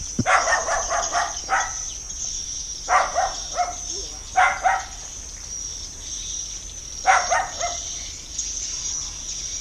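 A dog barking in short volleys of a few barks each, several times, over a steady high-pitched drone of insects.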